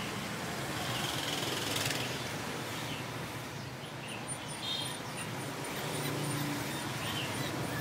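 Steady background room noise with a few faint, short, high bird chirps in the second half.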